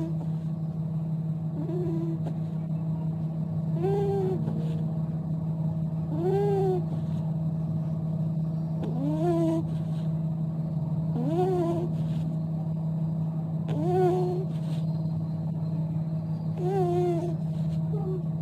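Beagle puppy snoring in its sleep, a short pitched note that rises and falls on each breath, about every two to three seconds, over a steady low hum.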